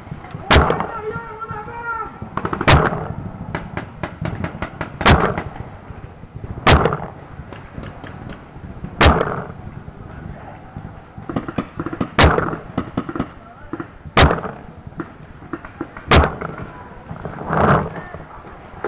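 Paintball marker fire: a sharp pop roughly every two seconds, with quicker, fainter pops and cracks between them.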